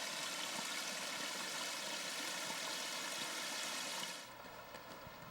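Running water, a steady rushing hiss that cuts off abruptly about four seconds in.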